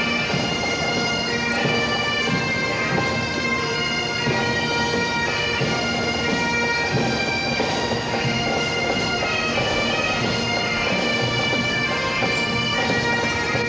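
Pipe band's Great Highland bagpipes playing a tune over their steady drones, without a break.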